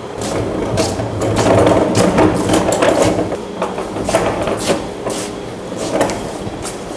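Plywood cabinet carcass on swivel caster wheels rolled across a concrete floor: a rumble with many irregular clicks and knocks.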